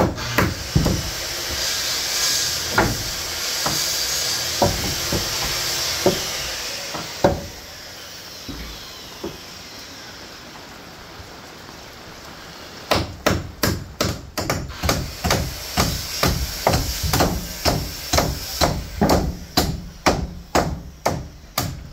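Hammer blows on wooden wall framing. A few scattered blows come over a steady hiss in the first several seconds. After a lull, a run of quick, regular blows follows, about two to three a second, stopping just before the end.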